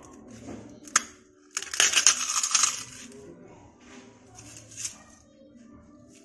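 A dried, brittle sabudana (sago) papad being crushed in the hand: a sharp snap about a second in, then a loud crackle lasting about a second as it breaks into flakes, and a few lighter crackles later.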